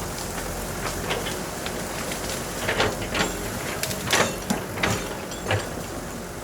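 Excavator working: a steady machine running sound with a string of sharp knocks and cracks in the middle, the loudest about four seconds in.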